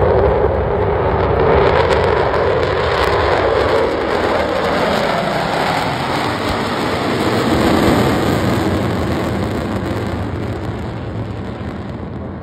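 Jet noise from four Blue Angels F/A-18 Super Hornets' twin turbofan engines flying over in diamond formation: a loud, steady rush that drops in pitch in the first few seconds and fades near the end.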